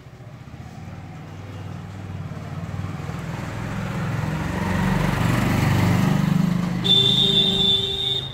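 A motor vehicle engine passing by: a low rumble that swells to its loudest about five seconds in, then fades. Near the end a steady high-pitched tone sounds for about a second and a half.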